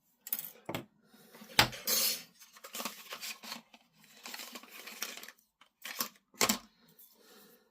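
Small plastic model parts being clipped off the sprue and handled on a workbench: sharp clicks and knocks with scraping and rustling between, the loudest about a second and a half in and again near six and a half seconds.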